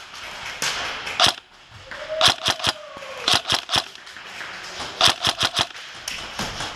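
Airsoft guns firing: sharp cracks, first singly, then in quick strings of three to five shots.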